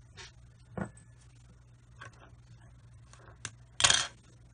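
Flush cutters snipping off soldered LED leads on a circuit board: a few sharp clicks, then a louder, longer clatter about four seconds in.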